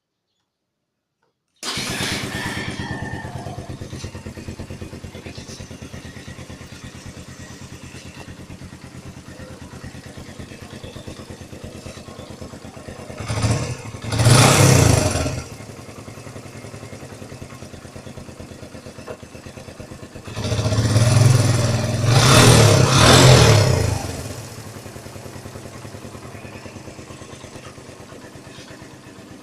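2009 Suzuki Thunder 125's single-cylinder four-stroke engine on its stock exhaust, starting about two seconds in and idling. It is revved briefly about halfway, then through a longer run of revs a few seconds later, and settles back to idle each time.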